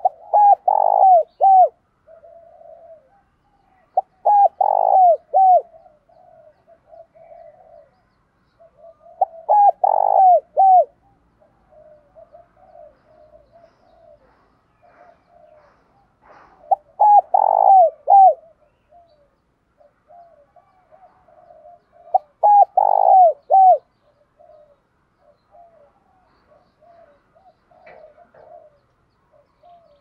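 Spotted dove cooing: five loud phrases of several quick coos each, a few seconds apart, with softer coos in between.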